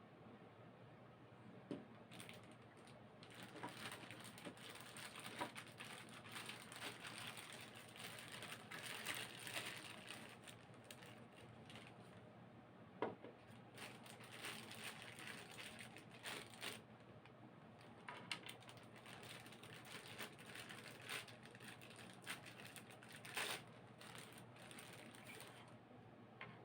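Faint rustling and crinkling of plastic packaging as figure parts are unwrapped, with scattered light clicks and taps of plastic pieces being handled.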